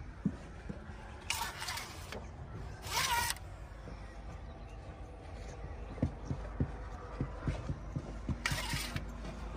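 Heavy diesel machinery running with a steady low rumble, broken by three short hissing bursts and a run of scattered knocks in the second half.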